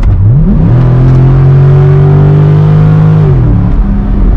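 C6 Corvette V8 through a Borla Stinger cat-back exhaust with X-pipe, revved up, held at steady revs for a couple of seconds, then dropping back to a lower, steady engine speed.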